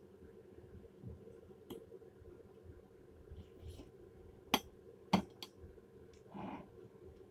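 A metal fork clinks against a plate while eating: two sharp clinks a little over halfway through, with a few fainter taps and scrapes around them.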